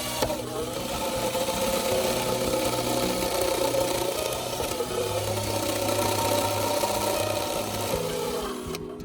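Power tool motor running steadily under background music, its pitch sagging briefly around the middle and the tool stopping near the end.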